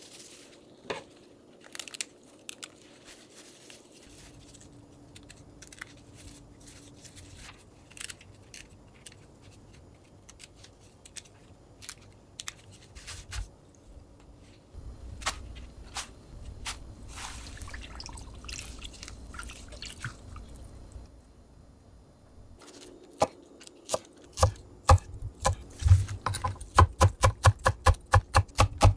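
Wet perilla leaves rustling and clicking against a stainless mesh colander as they are handled and shaken to drain, then a knife chopping spring onions on a wooden cutting board in quick, even strokes during the last few seconds, the loudest sound here.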